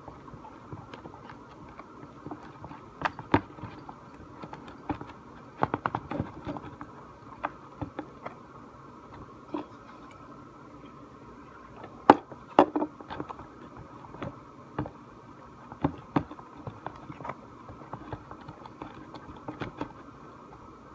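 A stick stirring a thick slime mixture in a container, knocking against the sides in irregular clicks and taps, some in quick clusters, over a steady background hum.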